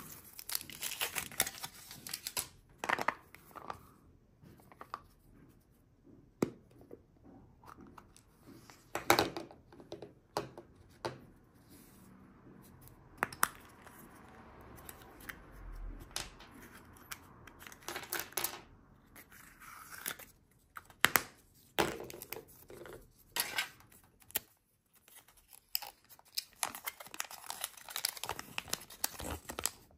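Hands opening a Kinder Surprise egg: the plastic toy capsule being handled and opened, and the thin plastic toy bag being crinkled and torn. The sound is irregular crackles and sharp clicks, with a quieter spell about halfway through.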